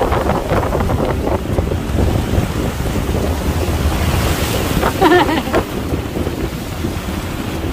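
Wind buffeting the microphone over ocean surf breaking on the shore, a steady loud rush. A short pitched sound cuts through about five seconds in.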